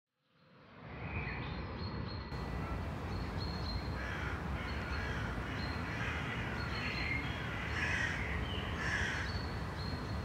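Steady low road and wind rumble from the moving vehicle, fading in at the start, with crows cawing over it again and again, the loudest caws near the end.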